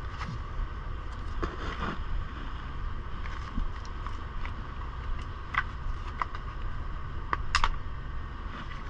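Steady low engine rumble, with scattered small clicks and plastic rustles as a Bluetooth headset and its ear pieces are handled; the sharpest click comes about three-quarters of the way through.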